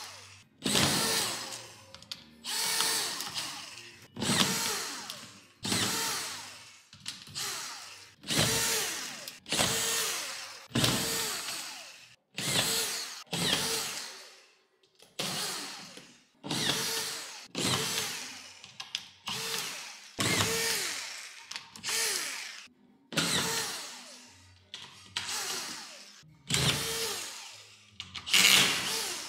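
Makita DFS452 18 V brushless cordless drywall screwdriver driving screws into plasterboard, one after another: a short whir about a second long each time, fading away, repeated roughly every second and a half.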